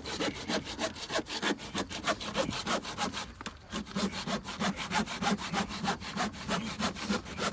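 Hand saw cutting through wood in quick, even back-and-forth strokes, with a brief pause about halfway through.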